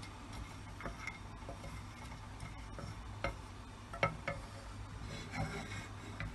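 Wooden spoon knocking and scraping against a cooking pot while whole spices are stirred in hot oil: light, irregular taps, the clearest about three and four seconds in, over a low steady hum.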